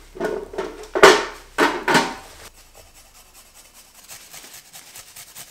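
Carrot being grated on a stainless-steel microplane grater: a run of short, quick rasping strokes in the second half. Before that come a few louder, sharper handling sounds.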